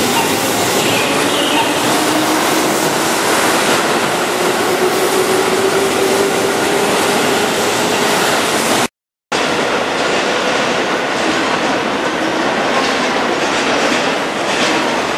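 Keihan electric commuter train pulling away from the platform, its motor whine rising in pitch under steady wheel-and-rail noise as it gathers speed. After a brief cut about nine seconds in, the same train rolls in over curved track and points with steady wheel noise and clickety-clack.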